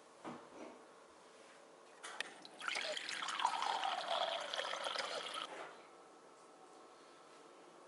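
Water from a refrigerator's door dispenser running into a drinking glass, starting about two seconds in and cutting off after about three and a half seconds.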